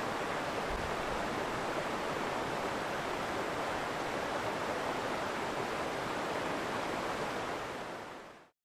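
Steady rush of flowing stream water, an even hiss that fades out near the end.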